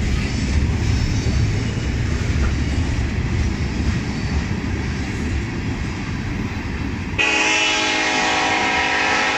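Freight cars rolling past with a steady low rumble. About seven seconds in, a locomotive air horn starts sounding loud and steady, a held chord of several notes.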